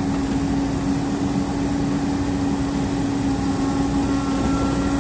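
JCB excavator's diesel engine running steadily, a constant low hum over heavy rumble.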